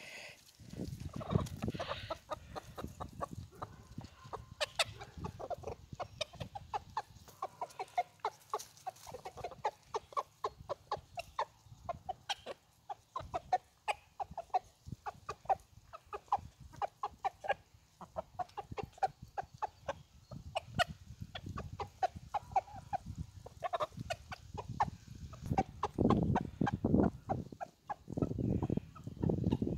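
A flock of chickens clucking in short, rapid, soft calls while they peck at food. A louder low rumbling comes in near the end.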